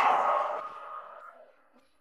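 Isolated industrial-song vocal stem: a harsh, distorted male vocal sound is held at first, then dies away over about a second and a half.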